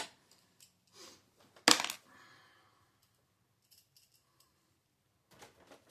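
Plastic and metal parts of a printer being handled during disassembly: a few light clicks and one sharp clatter about one and a half seconds in.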